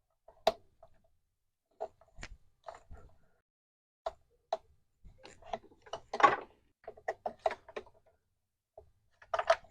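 Hand tools and engine parts being handled during intake and fuel-rail removal: scattered sharp clicks and knocks, with a louder, longer rattle about six seconds in.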